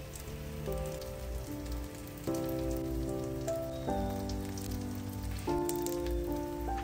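Eggs, cherry tomatoes and cheese frying in a pan, sizzling steadily, under background music of slow, held chords that change every second or so.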